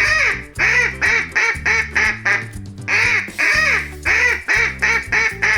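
A duck quacking over and over in quick runs of short quacks, over light background music.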